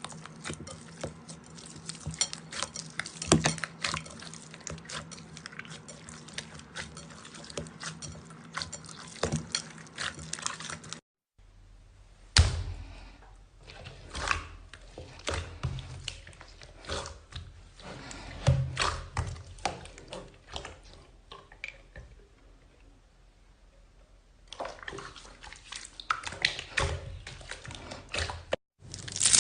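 Slime being squeezed, stretched and poked by hand, making irregular wet, sticky clicks and pops. The sound comes in separate clips, with sudden cuts about eleven seconds in and just before the end.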